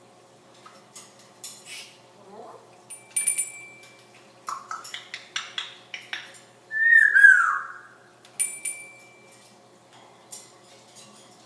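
African grey parrot making scattered sharp clicks and pops, some carrying a short high tone. A little past the middle it gives one loud whistle that glides down in pitch.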